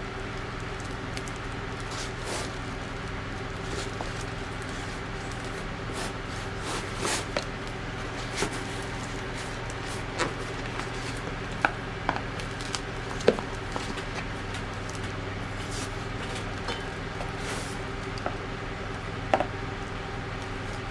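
A steady low hum with scattered light clicks and knocks, a few of them sharper.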